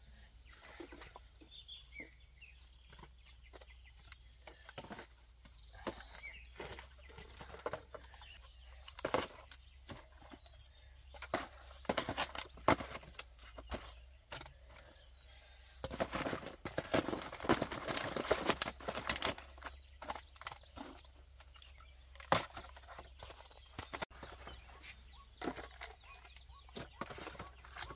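Plastic drink bottles knocking and crinkling as they are handled and dropped into a woven bamboo basket: scattered clicks and knocks, with a dense burst of clattering a little past halfway.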